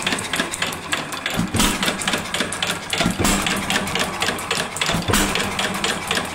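Bluffton Ideal 3/4 hp hit-and-miss engine with 10-inch flywheels running: three firing thumps spaced almost two seconds apart, the engine coasting on its flywheels between them, with a fast clatter from the moving parts.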